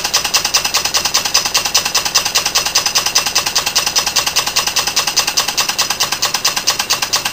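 Stuart Turner No. 9 horizontal model steam engine running on compressed air, its exhaust puffing in a fast, even beat.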